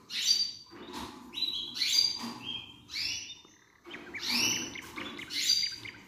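Canaries chirping: short, high calls repeated about once a second.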